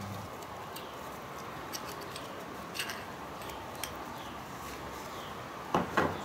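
Light metallic clicks of the steel and friction plates of a Ford 8.8 limited-slip clutch pack being handled and separated by hand. Two louder clinks come close together near the end.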